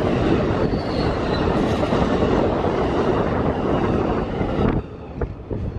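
Amtrak Superliner bilevel passenger cars rolling past at speed: a loud, steady rumble and clatter of steel wheels on rail. It drops away suddenly near the end as the last car clears, leaving wind buffeting the microphone.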